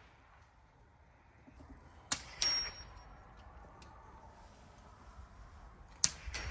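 Two .22 LR rimfire rifle shots about four seconds apart, each a sharp crack followed a fraction of a second later by the high ring of a steel target being hit downrange.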